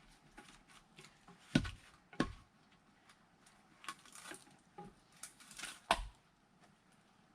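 Firewood splitting: three sharp wooden knocks with a heavy thud, the first two about half a second apart and the third near the end, among lighter clicks and clatters of wood.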